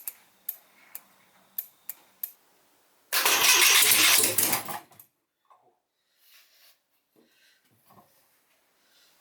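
A few sharp clicks, then the Citroën GS 1300's air-cooled flat-four engine turns over loudly for about two seconds and stops suddenly.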